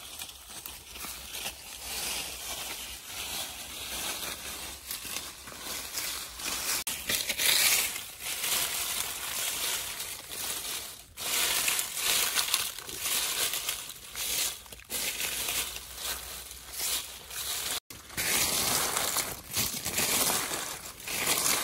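Dry fallen leaves crackling and rustling as hands rake and scrape through the leaf litter, in uneven bursts.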